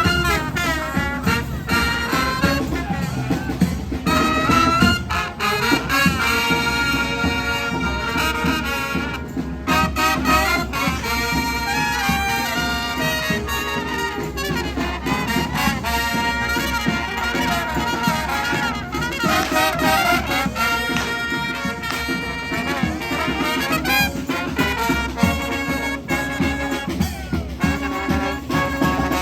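Street brass band playing, with trumpets and trombones sounding together in full, continuous ensemble.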